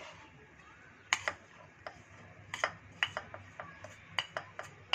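A metal spoon tapping and scraping against a small ceramic bowl as flour-coated tutti frutti is scraped out into cake batter: a dozen or so sharp, irregular clicks, starting about a second in.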